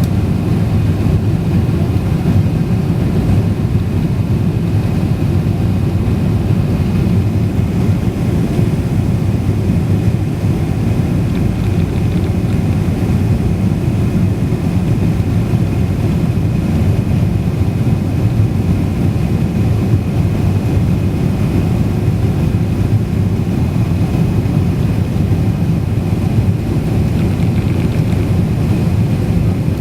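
Steady low rumble of an airliner's engines and airflow heard inside the passenger cabin, with a faint steady high whine above it.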